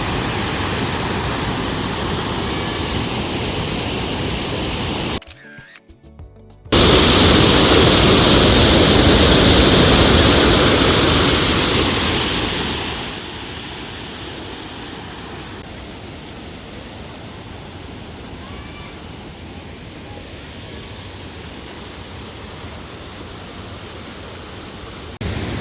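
Rushing water of a waterfall: a steady, even rush. It drops out briefly about five seconds in, comes back loudest for several seconds, then settles to a quieter steady rush.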